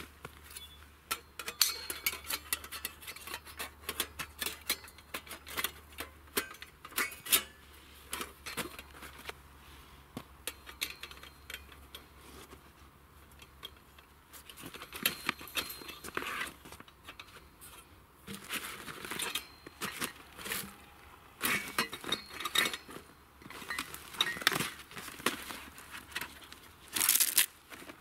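Metal parts of a folding stainless-steel grill clinking and clattering as they are handled and fitted together, in many short irregular knocks. Near the end a fabric bag crinkles and rustles.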